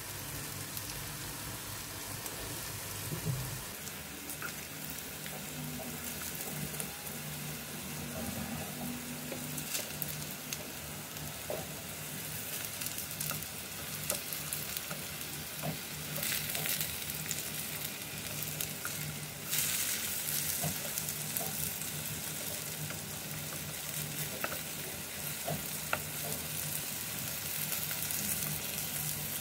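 Slices of soybean tempeh sizzling as they fry in hot oil in a nonstick pan, with scattered crackles and the scrape and tap of a spatula turning them. The sizzle grows louder for a few seconds a little past halfway.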